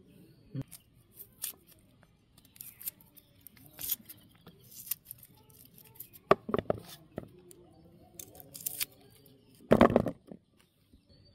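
Small onions being peeled against the upright curved blade of a boti, a Bengali floor cutter. Short scraping, snipping clicks come as the skins are pared. Peeled onions land in a plastic bowl with louder knocks a few times, the loudest about ten seconds in.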